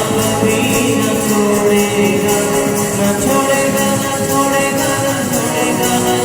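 Instrumental devotional music: sustained melodic notes over rhythmic high percussion that keeps a steady beat.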